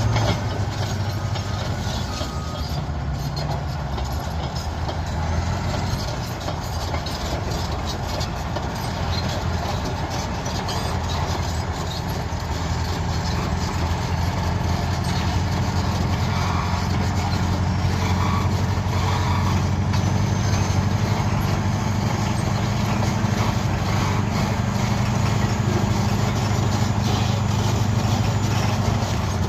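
Caterpillar D7E bulldozer's diesel engine running steadily under load, a little louder in the second half.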